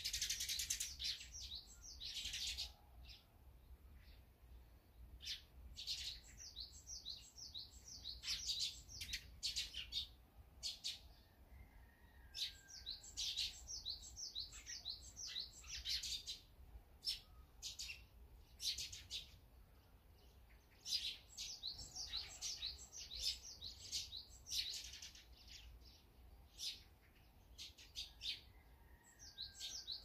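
Small songbirds chirping: quick runs of short, high, sharp notes that come in clusters every second or two, again and again.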